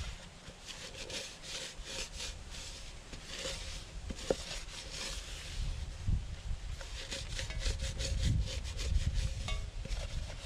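Paper towel rubbing and scrubbing over the inside of a Firebox 10-inch fry pan in many quick strokes, wiping out cooking residue from the cooled pan. Low bumps and rumble of the pan being handled in the second half.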